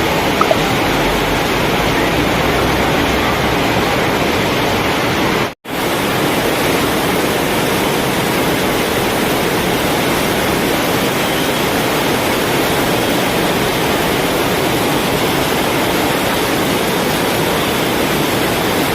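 Heavy rain falling as a loud, steady hiss, with one brief break about five and a half seconds in.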